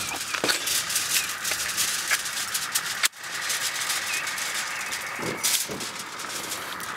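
Gas burner of a Skotti stainless-steel plug-together grill, fed from a large gas bottle, burning with a steady hissing rush and fine crackle. It starts suddenly as the burner is lit, with a brief drop a little after three seconds in.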